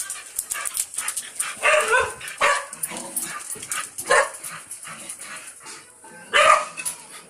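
Dog barking in short, loud barks, about five spread unevenly, the loudest near the end. It is barking at monkeys to chase them off.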